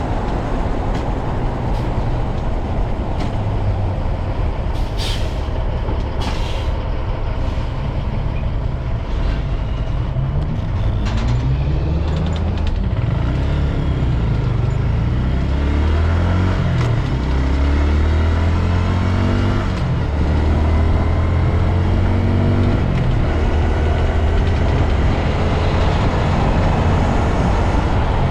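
2022 Honda Grom's single-cylinder engine running while riding, under heavy wind and road rumble on the microphone. Partway through, the engine pitch falls and rises several times.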